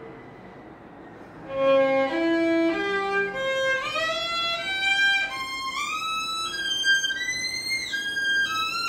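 Solo violin playing a C major arpeggio in slow, separate bowed notes. It starts about a second and a half in and climbs in wide steps over about three octaves, with short slides between notes as the hand shifts position, then turns back down near the end.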